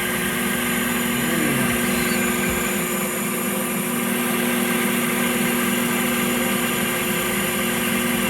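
Light Machines Spectralight 0200 benchtop CNC mill running a facing pass: a steady machine whine from the spindle and axis drives as the table traverses back and forth. A short gliding tone comes about a second in.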